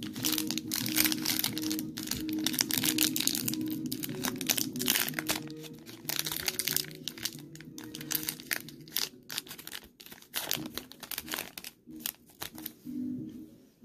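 Foil wrapper of a Pokémon trading-card booster pack crinkling densely as it is handled and opened, thinning to scattered crackles near the end. Background music plays underneath.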